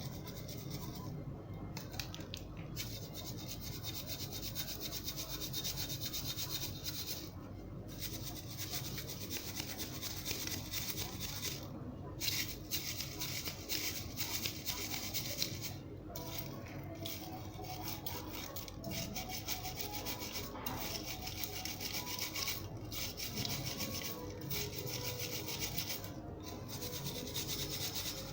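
Red clay dust being crunched and rubbed with a mesh scrubber: a continuous crunchy rubbing made of rapid fine scrapes, broken by short pauses every few seconds.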